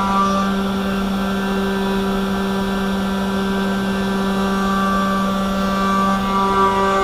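500 W spindle on a 3018 desktop CNC router running steadily, its end mill cutting a slot in wood: a loud, steady pitched hum with a higher tone above it. The higher ringing tones fade about half a second in and come back near the end.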